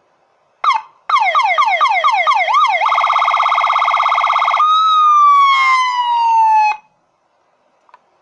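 Double-tone 12-tone electronic police-escort siren module sounding through its speaker. A short chirp is followed by fast repeating falling yelps, then a rapid warble, then one slow descending wail that cuts off suddenly about seven seconds in.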